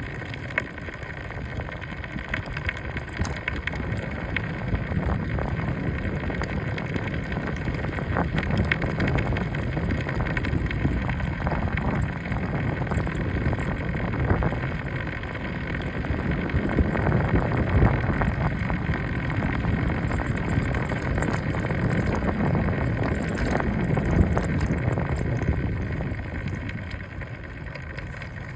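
A vehicle being driven, with steady low rumbling road noise and scattered light clicks of a rattle from the front wheel, a noise the owner says has been there since day one. It grows louder through the middle and eases near the end.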